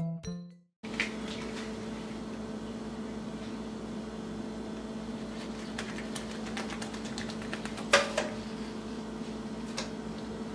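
The last note of a short musical jingle dies away, then a steady low electrical hum with faint ticks as a pancake is handled on a nonstick electric skillet. About eight seconds in there is one sharp knock against the skillet.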